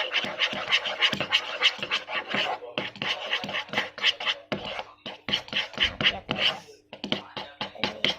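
Clear glue and soap being stirred in a container for slime: quick repeated scraping strokes, about four or five a second, with short pauses.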